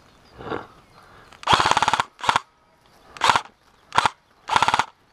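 Airsoft replica rifle firing about five bursts of rapid shots, the first and longest about half a second long, then four shorter bursts.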